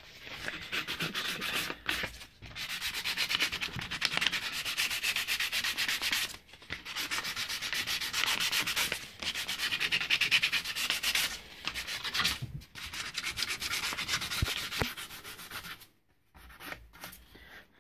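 220-grit sandpaper rubbed by hand over a longbow's buffalo-horn nock in fast back-and-forth strokes, with brief pauses every few seconds.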